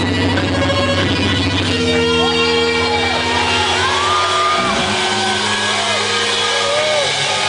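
Rock band playing live and loud through the PA in a large hall, heard from the crowd: held guitar chords with voices singing and shouting over them.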